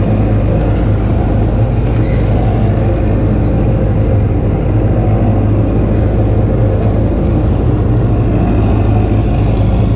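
Boat engine running steadily under load, towing a shrimp trawl, with a low hum and water rushing along the hull of a 1988 25-foot Parker.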